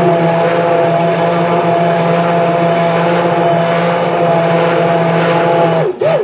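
iCook immersion blender motor running at a steady speed with a steady hum, its blades churning thick tomato sauce in a deep pot. It switches off just before the end.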